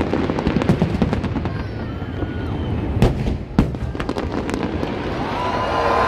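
A fireworks display: aerial shells bursting in a dense run of bangs and crackles, with two sharp, loud reports about three seconds in.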